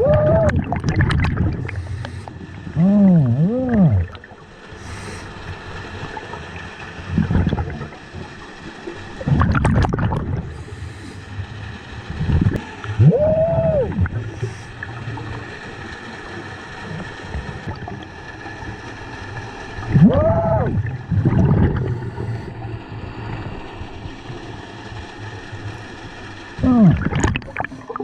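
Scuba regulator heard underwater: exhaled breaths bubbling out in bursts every few seconds, several with a whine that rises and falls in pitch, over a steady underwater hiss.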